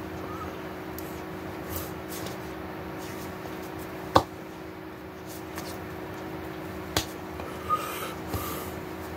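Hands slapping against each other or the body during signing: one sharp slap about four seconds in, then two more less than a second apart near the end, over a steady electrical room hum.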